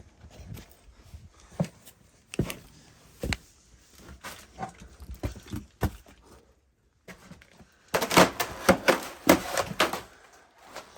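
Scattered thumps and knocks, then a dense run of sharp clattering knocks near the end: handling of steel Bilco cellar doors and footsteps going down into the basement.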